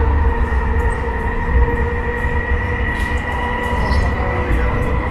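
Cabin noise of an MTR East Rail Line electric train under way: a steady low rumble with a steady high whine over it.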